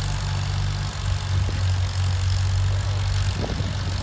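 Farmall H tractor's four-cylinder engine idling steadily.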